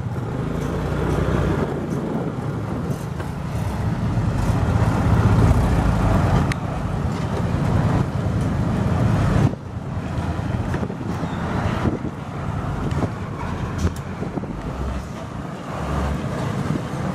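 Diesel engine of a loaded-body dump truck running as the truck approaches slowly on a dirt road. It is a steady low rumble that builds for the first half, drops suddenly about nine and a half seconds in, then carries on.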